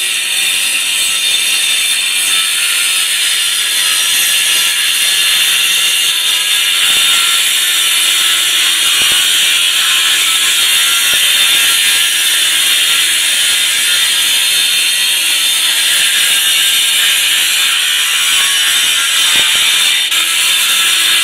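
Makita XAG12 36-volt (2×18V) cordless 7-inch angle grinder running under load, its disc grinding into concrete with a steady, loud, high-pitched grinding hiss.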